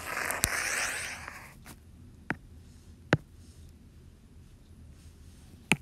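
Stylus tip tapping on a tablet's glass screen: about five sharp, single taps at uneven gaps. They follow a breathy hiss in the first second and a half.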